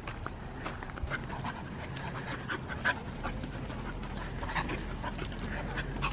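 Dogs panting as an Australian Shepherd puppy and a small tan dog play-wrestle, with scattered short scuffling sounds throughout.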